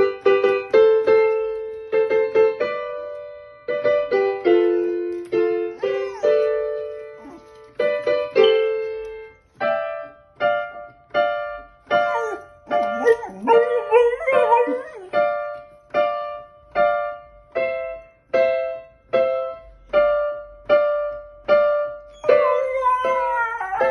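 Electric keyboard played in chords and then steadily repeated notes, with a dog howling along in wavering howls about halfway through and again near the end.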